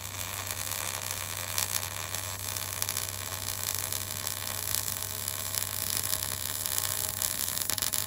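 Electric arc welding on steel: a steady crackling hiss from the arc over a constant low hum.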